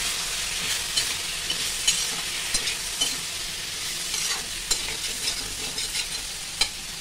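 Chana dal pakode pieces sizzling in oil in an iron kadhai, with a little water just added, as a steel spatula stirs them. The spatula clicks and scrapes against the pan at irregular moments over the steady sizzle.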